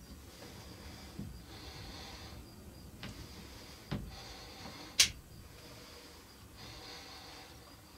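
A group of feral hogs feeding, giving occasional low grunts and snorts, with one sharp click about five seconds in.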